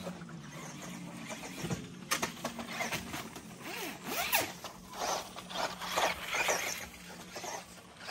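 Tamiya Rising Fighter electric RC buggy driving on a dirt track. Its motor whines, rising and falling in pitch as it speeds up and slows, with repeated bursts of rustling noise from the wheels on the ground.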